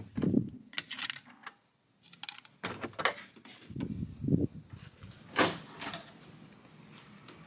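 Scattered clicks, knocks and a few dull thuds from a phone camera being carried and handled while walking around a room. The sharpest click comes about five and a half seconds in.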